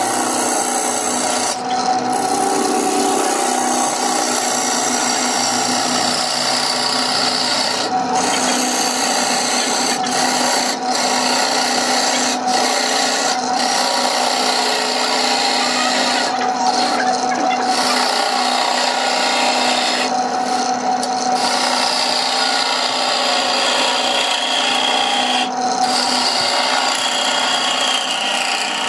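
Wood lathe running while a turning tool cuts a spinning blank glued up from small firewood pieces: a steady rough cutting noise over the lathe motor's hum, dropping away briefly several times.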